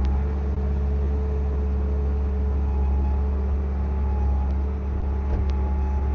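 Bobcat S650 skid steer's diesel engine running steadily, a deep even drone, with a couple of faint clicks about five and a half seconds in.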